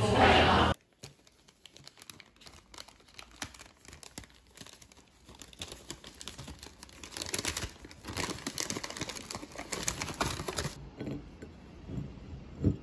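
Crinkling and rustling of something being handled, with scattered small clicks, busiest in the second half. It follows a louder sound that cuts off abruptly under a second in.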